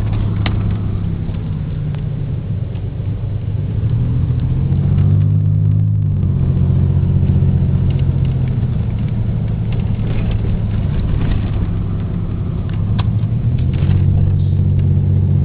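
Vehicle engine running with a steady low rumble, its pitch shifting up and then settling back around the middle.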